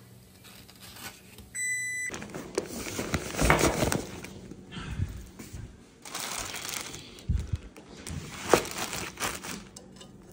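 A short electronic beep about one and a half seconds in, then irregular bursts of rustling and clattering as household things are handled.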